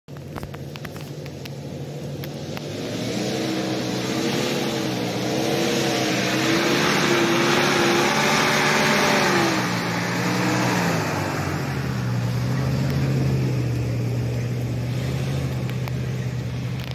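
Off-road SUV's engine pulling as it drives up toward the camera, getting louder as it nears. Its pitch wavers up and down with the throttle, then settles into a steady lower note for the last several seconds.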